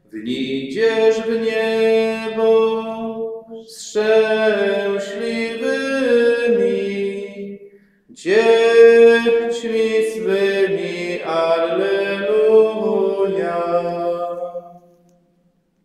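A single male voice chanting a liturgical prayer without accompaniment, holding long, steady notes in three phrases.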